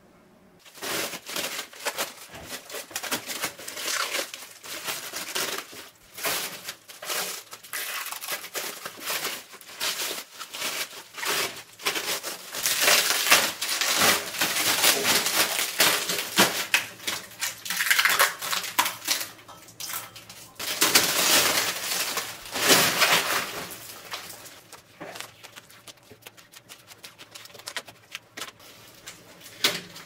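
Plastic wrapping film crinkling and tearing as it is pulled off a stainless steel work table. The dense crackling starts about a second in and thins out near the end.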